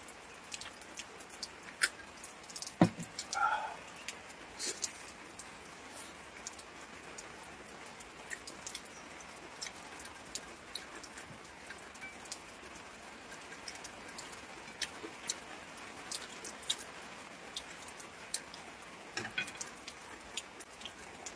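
Rain dripping with scattered, irregular ticks of patter over a faint hiss. A single louder knock comes about three seconds in.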